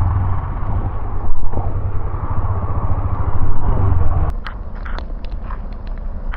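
Motorcycle engine running while riding, with road and wind noise. About four seconds in, the engine note drops and a scatter of sharp clicks and knocks follows.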